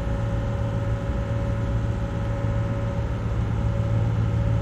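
The motor yacht's twin diesel engines are running under way. It is a steady, even drone with a deep hum and a fainter higher tone.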